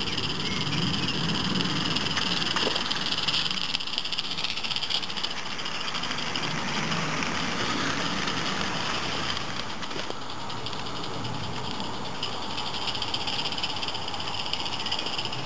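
Live-steam garden-railway locomotive running past with its train, a steady hiss and running noise from the engine and the wagons on the track. The sound changes abruptly about ten seconds in.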